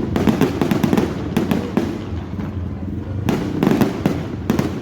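Fireworks going off in a dense barrage: rapid, overlapping bangs and crackles, with a steady low rumble underneath.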